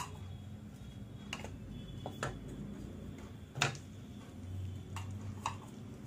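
A handful of short clicks and knocks of a bowl and wooden spatula against a non-stick kadai as chopped tomatoes are tipped into the pan, the loudest a little after halfway through, over a faint steady low hum.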